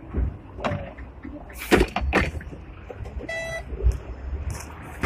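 Low rumble of a Hong Kong tram with a few loud knocks and clatters, then a short electronic beep about three and a half seconds in, from the Octopus card fare reader by the driver.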